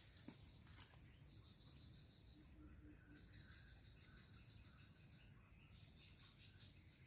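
Quiet outdoor ambience dominated by a steady, high-pitched insect drone of crickets or cicadas, with a weaker pulsing insect note lower down and a faint low rumble.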